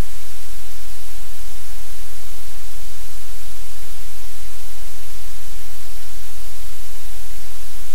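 Loud, steady static hiss with a low hum underneath, unchanging throughout: noise on a livestream camera's audio feed.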